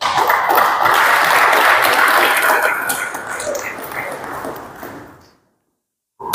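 Audience applauding, starting suddenly and dying away after about five seconds.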